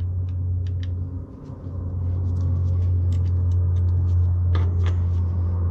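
A steady low rumble that dips briefly about a second in, with light clicks and taps of a Torx driver on the T25 screws that hold the coil packs to the ignition control module.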